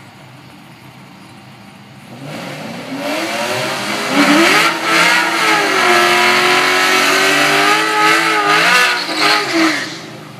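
Drag race car doing a burnout: the engine revs up about two seconds in and is held at high revs with the tyres spinning, the pitch wavering, until it drops off near the end.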